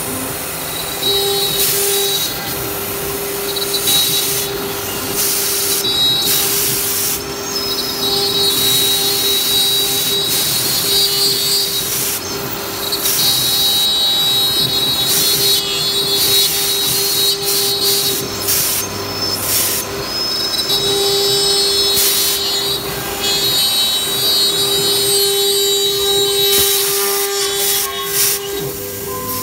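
CNC router cutting MDF. The spindle whines steadily at a high pitch under a lower steady hum, and the bit breaks into repeated surges of hissing cutting noise as it moves through the board.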